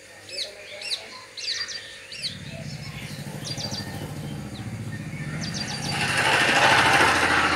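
Small birds chirping in short quick calls for the first couple of seconds, then a low, pulsing engine rumble that builds steadily louder, like a motor vehicle approaching, with a hiss joining it about six seconds in.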